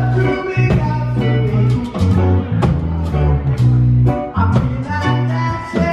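Live band playing: a bass guitar holds long low notes under a steady drum beat, with keyboard and guitar on top.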